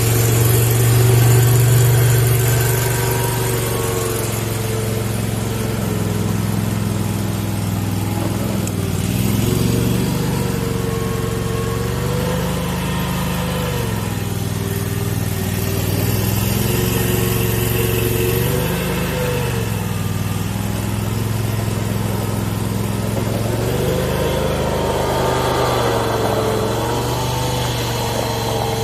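Mini skid steer's small engine running steadily, with a higher whine that wavers up and down again and again as it works.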